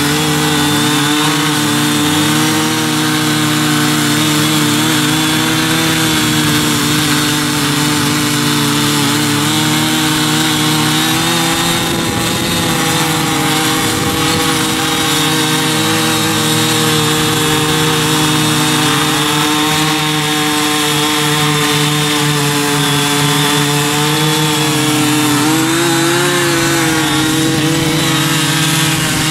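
Small 43cc petrol engines of two Ching Yee CY50 mini cultivators running steadily under load while their four-rotary tilling blades break up hard, unworked soil. The pitch wavers briefly near the end as the load changes.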